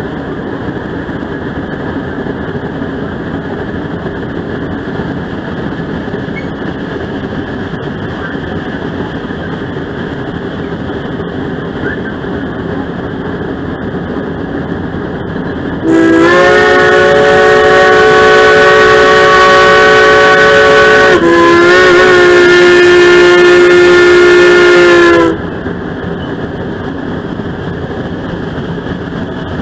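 A steam locomotive's whistle blows one loud, steady blast lasting about nine seconds, starting about halfway through, with a brief break near the middle, then stops sharply. Before and after it, the steady rumble of the moving train runs underneath.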